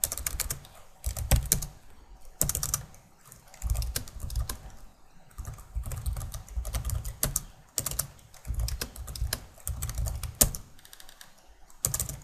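Computer keyboard being typed on, the keystrokes coming in short runs of clicks with brief pauses between them.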